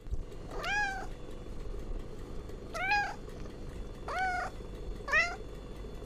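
Domestic cat meowing four times, each meow short, rising and then falling in pitch, with a second or so between them.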